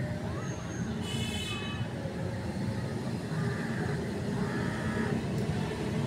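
Steady low background rumble of outdoor noise, with a brief high-pitched chirp about a second in.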